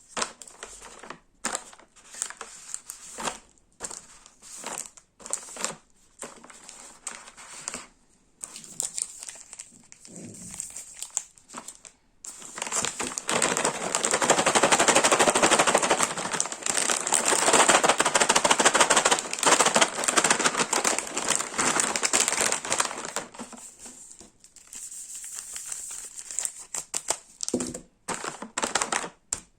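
Snack packaging rustling and crinkling as it is handled: separate short crinkles and clicks at first, then about ten seconds of dense continuous crackling about halfway in, then scattered crinkles again.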